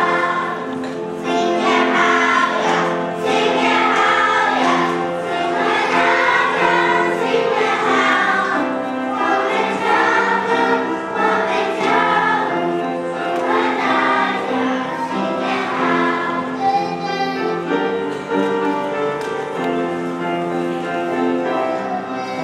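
Children's choir singing a Chinese song together in Mandarin.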